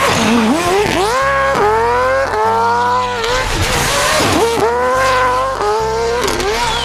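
Racing car engine sound revving up and down several times, with a rising and falling whine, over background music.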